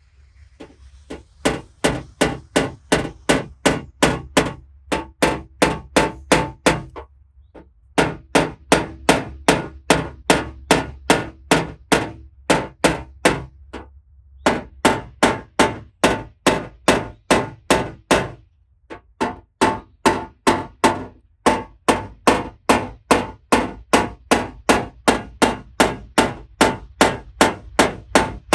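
Paintless dent repair tapping: a small hammer striking quick, even taps on a car's sheet-metal panel to level it, about three a second, in several runs with short pauses between them.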